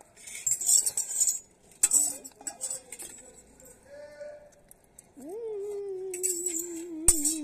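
A metal fork scraping and clinking on a steel plate. About five seconds in, a girl starts a long, wavering mock-crying wail: the pitch rises quickly, then holds with a trembling quiver.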